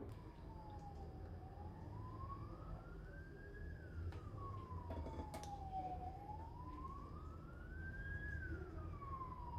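A siren wailing, its pitch rising and falling slowly twice over, above a steady low hum.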